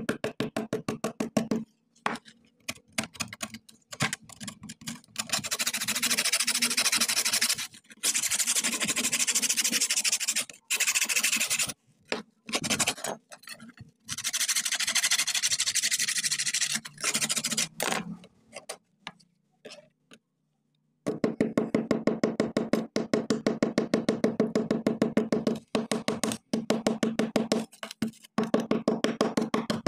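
Hand scraping of rust off a steel sickle blade with a metal scraper blade, in quick rasping back-and-forth strokes. The scraping runs as long continuous passes through the middle, stops for about a second, then resumes as rapid regular strokes, several a second.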